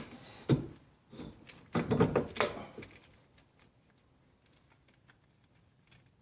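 Clicks and metallic knocks of a small hand clamp being worked on a brake caliper to squeeze it narrower. The louder knocks come in the first two and a half seconds, then only scattered light ticks.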